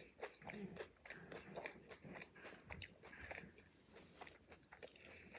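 Faint, close-miked chewing and biting: irregular soft mouth clicks and wet smacks of a person eating food dipped in sauce, thinning out in the last second or two.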